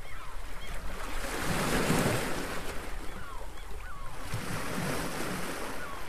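Surf washing over a rocky shore, swelling loudest about two seconds in, with birds calling in short rising and falling cries over it.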